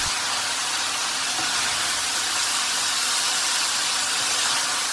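Diced chicken liver frying in hot oil in a pan, a steady even sizzle.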